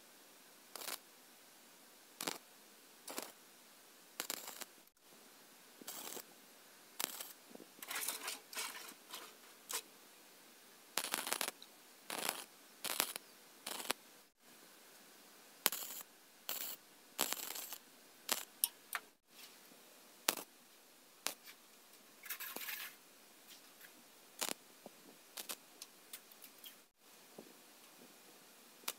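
MIG welder tack-welding square steel tubing: a series of short arc crackles, most a fraction of a second and a few lasting about a second, with brief pauses between them.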